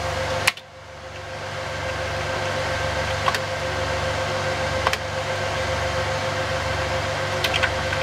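Steady hum of a powered-up file server's cooling fans and spinning hard drives, with a few sharp keyboard key clicks as menus are stepped through.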